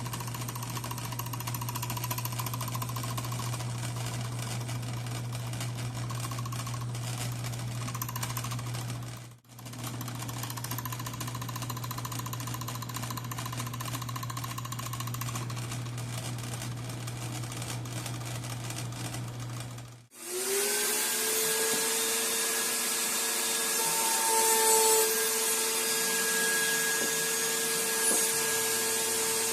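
Power tools working wood. A steady low hum with noise runs in two stretches with a short break between them. About twenty seconds in, a different motor starts up with a rising whine and then runs steadily with a strong hiss.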